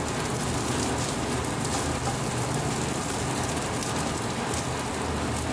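Wooden spatula stirring and scraping rice around a wok, against a steady hiss.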